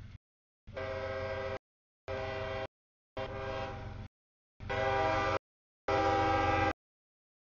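CSX diesel locomotive's multi-tone air horn sounding about five blasts for a grade crossing, getting louder as the locomotive draws near, over the low rumble of the train.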